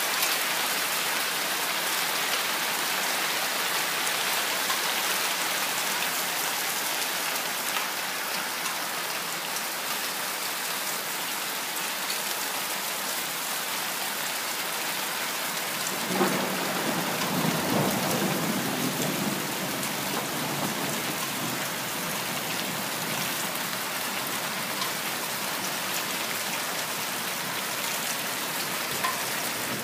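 Hail falling steadily, a dense hiss of small pellets ticking on the ground and surroundings. A low rumble rises for a few seconds about halfway through.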